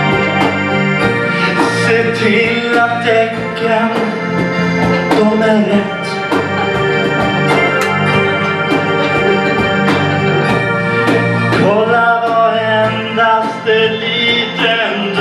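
Live band music: sustained keyboard chords and a low bass line over a drum kit keeping a steady beat with cymbal hits, with a voice singing into a microphone over it, most strongly near the end.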